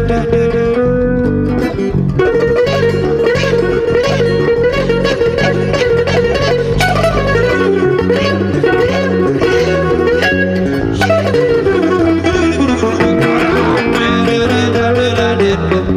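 A hollow-body electric guitar and an electric bass guitar playing an instrumental piece together, a line of plucked guitar notes over low bass notes.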